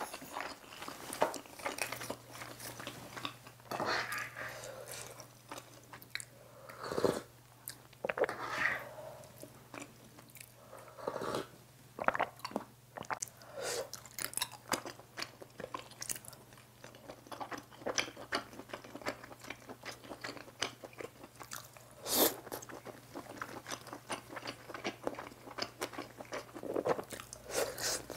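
Close-miked eating of budae-jjigae with ramen noodles: steady chewing with wet mouth clicks, and now and then a louder slurp of noodles and broth.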